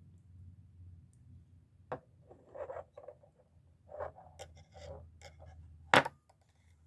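A stockman pocket knife being handled: a click about two seconds in, a few seconds of light rubbing and scraping, then one sharp snap near the end, typical of a slip-joint blade snapping shut.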